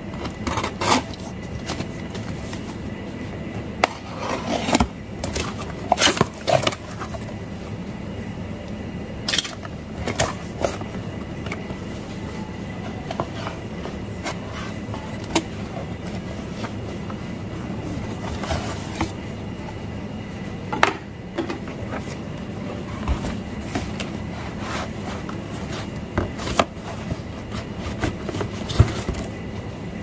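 A utility knife slits the tape on a cardboard parcel, and then the cardboard and paper scrape, rustle and knock irregularly as the box and cards are handled. A steady low hum runs underneath.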